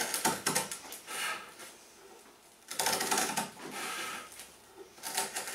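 Heavy-duty shears cutting through a thin eighth-inch plywood panel: short runs of crunchy snips with pauses between, about a second in, around three and four seconds in, and again near the end.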